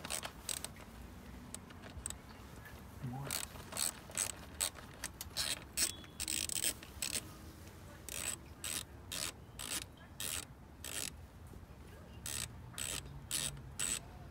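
Ratchet wrench clicking in short runs as bolts are loosened.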